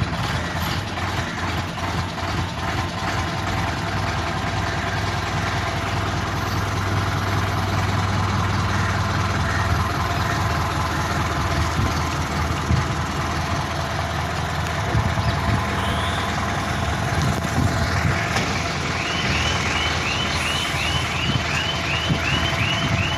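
Diesel generator engine running steadily. Near the end a high repeated beeping starts, about two or three beeps a second.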